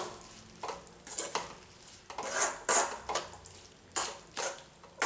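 A spoon stirring and scraping a thick tomato curry mixture around a pan, about a dozen short, irregular scrapes and clinks against the pan.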